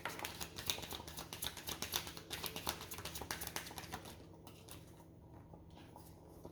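A deck of reading cards being shuffled: a quick run of clicking and rustling that stops about four seconds in.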